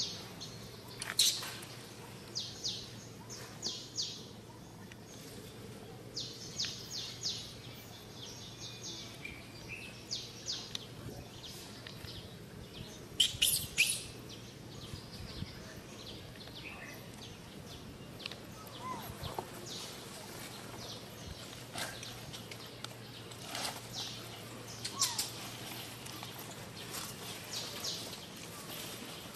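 Small birds chirping in the background: short, high, quick chirps in clusters throughout, loudest about halfway through, over a faint steady low hum.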